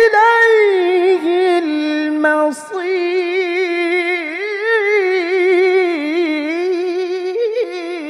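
A man reciting the Qur'an in the melodic mujawwad style, drawing one vowel out into a long ornamented melisma with quick wavering turns. A level held note breaks off about two and a half seconds in, and the voice resumes with the same wavering ornamentation.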